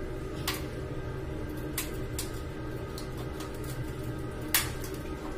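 Several sharp clicks and knocks from a ceramic wall-hung toilet bowl being pushed back onto its wall mounting after a new rubber seal has been fitted. The loudest knock comes about four and a half seconds in, over a steady low hum.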